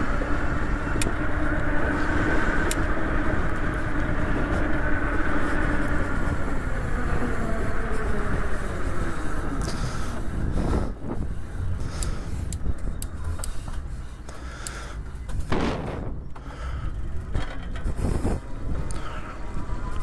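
Electric bike motor whining while riding, its pitch falling slowly over the first several seconds as the bike slows. About halfway through, the whine fades into rougher riding noise with a few sharp clicks, over steady wind rumble on the microphone.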